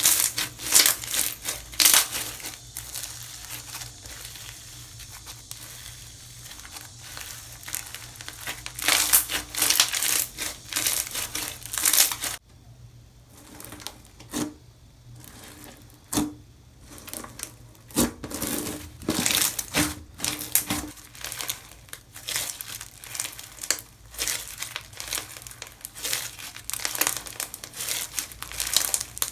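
Slime being squished, pressed and stretched by hand, giving dense runs of crackly, crunchy pops and clicks, with a quieter stretch about halfway through.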